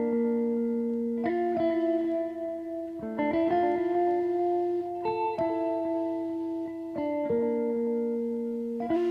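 Instrumental background music: sustained plucked-string notes, guitar-like, with the chord changing every second or two.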